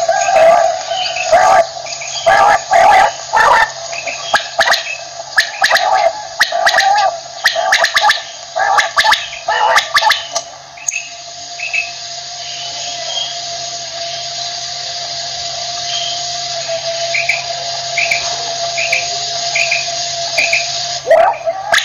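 Common quail calling, loud liquid calls repeated in quick bursts for about the first ten seconds. After a cut, a quieter stretch follows with a steady background hum and faint short chirps repeating, before the loud calls start again near the end.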